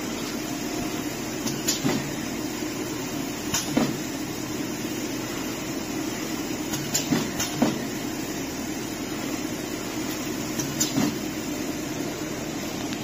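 Egg tart filling machine and conveyor running with a steady mechanical hum. Sharp clacks break in, mostly in quick pairs, every two to four seconds as the machine cycles.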